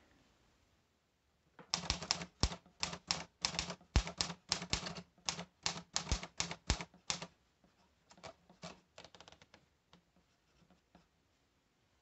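Manual typewriter typing a short line, about twenty crisp keystrokes in quick succession over five or six seconds. Fainter scratches of a pencil writing on paper follow.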